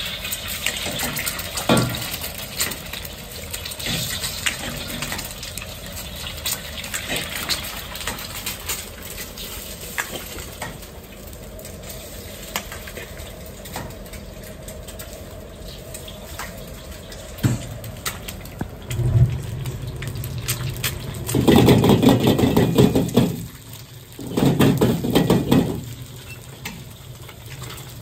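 Eggs cracked one after another into a hot oiled carbon-steel wok on a gas wok burner and frying, with sharp taps of shells and clinks of metal bowls. Late on, two loud rushing bursts of a second or two each.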